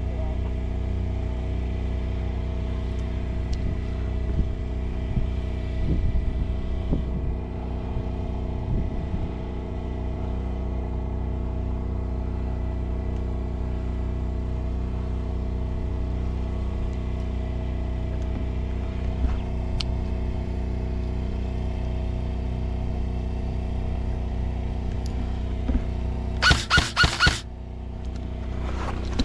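A steady low hum with faint knocks runs throughout. Near the end comes a quick string of about six sharp shots from an airsoft gun.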